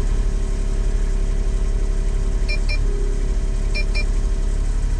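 Mini excavator's engine running with a steady hydraulic whine as the arm moves; the whine drops out briefly about halfway and then resumes. From about halfway, pairs of short high beeps repeat roughly every second, from the machine-control grade-guidance system.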